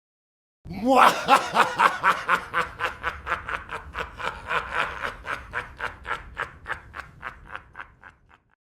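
Evil laugh sound effect: a long run of quick 'ha' pulses, about four a second. It starts loud and fades away over about seven seconds.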